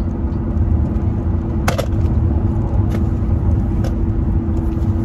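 Steady low rumble and hum of a running car heard from inside its cabin, with a few light clicks, the clearest about a second and a half in.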